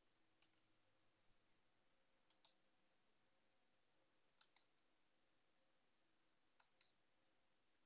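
Faint computer mouse clicks, four quick pairs of clicks about two seconds apart, over a faint steady hum.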